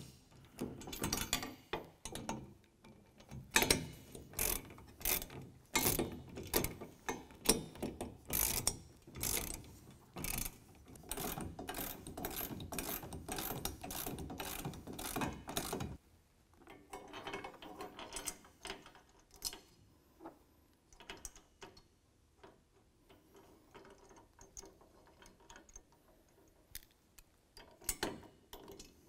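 Hand ratchet with a 17 mm socket clicking in runs of quick strokes as it tightens a carriage bolt nut on a steel rack bracket; about 16 seconds in, the clicks turn fainter and more scattered.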